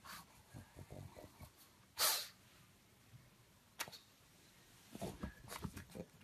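Pug snuffling and breathing, with one loud short snort about two seconds in and a run of quick snuffles near the end.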